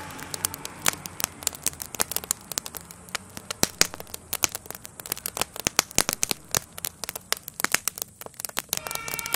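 Burning garden shed crackling and popping, with irregular sharp snaps several times a second. A siren comes back in near the end.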